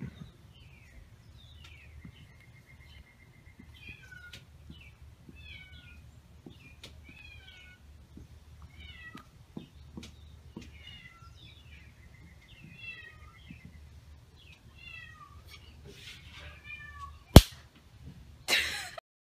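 Animal calls: a string of short, high chirps with two longer trills, over a low steady hum. Near the end come a sharp click and then a brief, louder burst of noise.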